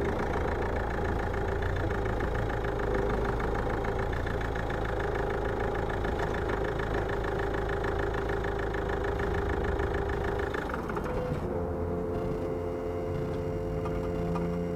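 Ford Mondeo Mk4 engine running steadily, its sound changing about eleven seconds in to a steadier, even tone.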